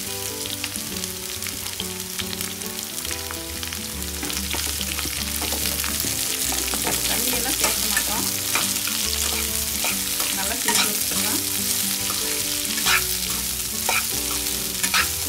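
Freshly added sliced onions sizzling in hot oil in a non-stick kadai, the sizzle getting a little louder about four seconds in. A stirring spoon knocks and scrapes against the pan now and then.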